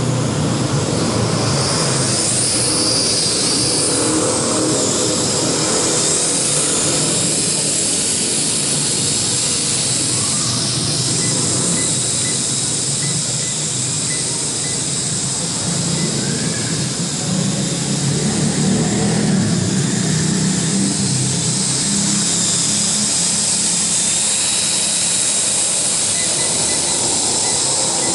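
L6036 toy quadcopter's four small propellers buzzing steadily in flight, the high whine wavering in pitch as the throttle shifts.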